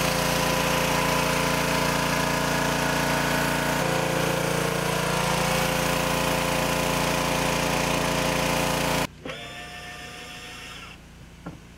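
Electric power tool motor running steadily at high speed, its pitch shifting slightly about four seconds in, then cutting off suddenly about nine seconds in.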